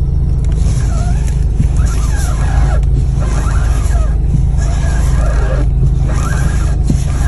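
Steering squeaking on a Mercedes-AMG CLA45 S as the wheel is turned with the engine idling: a wavering "kyu-kyu" squeal about six times, each lasting around a second, with short pauses between. The dealer traced the noise to a faulty steering gearbox that is to be replaced.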